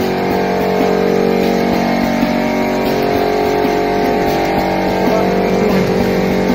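Copper-phosphorus welding ring making machine running, a steady hum made of several held tones.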